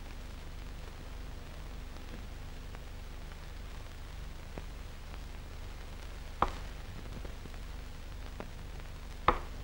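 Steady low hum and hiss of an old film soundtrack, with a few faint clicks.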